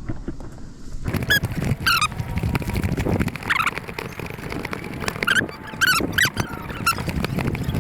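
Footsteps and rustling of a person on the move, with half a dozen short, pitch-bending squeaks scattered through it.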